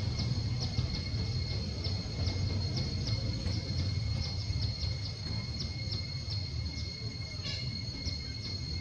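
Outdoor insect ambience: a steady high drone with short chirps repeating about twice a second and one brief call near the end, over a low rumble.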